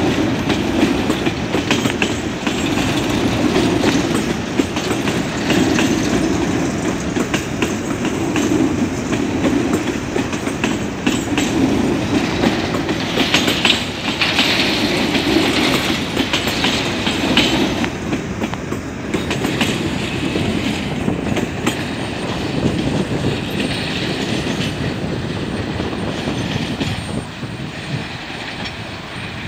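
Empty grain hopper wagons of a freight train rolling past close by: a steady rumble with wheels clattering over the rail joints. A higher metallic wheel screech comes in around the middle. The sound eases off slightly near the end as the last wagons move away.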